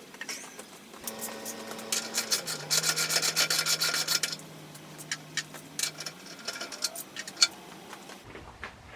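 Rapid rasping and clicking of hand work on motorcycle parts during disassembly, densest about two to four seconds in, then scattered clicks. A faint steady hum steps down in pitch partway through and stops about six seconds in.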